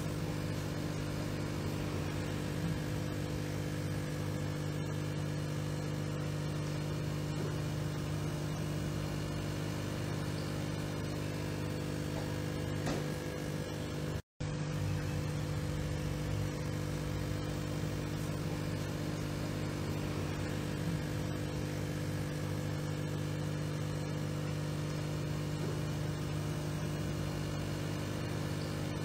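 Steady electric hum of aquarium pumps running, a constant low drone with a faint hiss over it. It drops out for a fraction of a second about halfway through.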